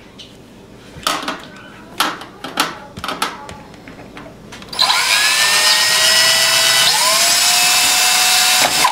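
A few light knocks, then a small electric drill starts about five seconds in and runs steadily, drilling a small-bit hole into a solid brass bullet; its pitch shifts once partway through, and it stops just before the end.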